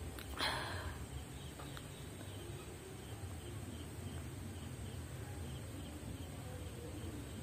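A short breathy sniff through the nose about half a second in, then faint steady background with small repeated chirps.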